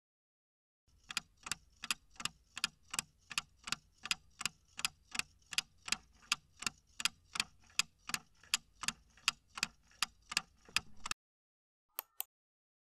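Clock-ticking sound effect marking a countdown timer, even ticks at almost three a second, stopping about eleven seconds in. Shortly after, two quick sharp clicks.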